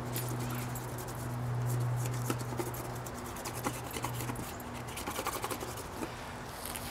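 A paintbrush tapping and dabbing against a canvas: scattered clicks, then a quick run of taps about five seconds in. Under them a low steady hum swells and fades out about four seconds in.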